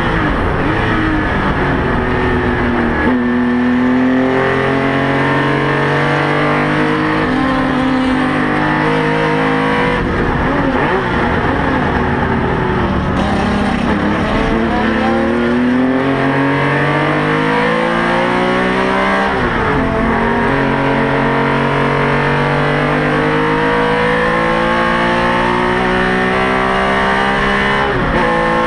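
Porsche 911 RSR racing flat-six heard from inside the car at full throttle, its note climbing through the revs again and again with quick drops at the gear changes. Around the middle it eases and falls away for a corner, then pulls hard again.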